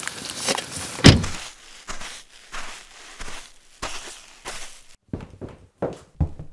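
A BMW car door slams shut about a second in, followed by a man's footsteps on a snowy, slushy driveway, about one every two-thirds of a second, and then quieter footsteps on a path.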